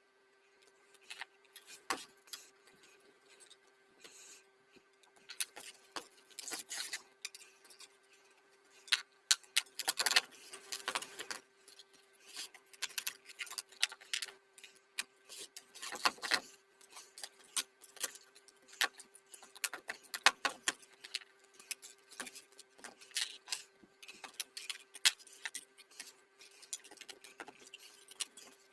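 Irregular metallic clicks, clinks and short scrapes of small metal parts and tools being handled, over a steady low hum.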